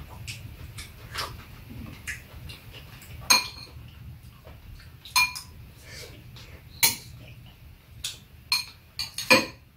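Metal spoons and chopsticks clinking and scraping against ceramic bowls while two people eat, a scatter of sharp, ringing clinks, four of them louder than the rest, over a low steady hum.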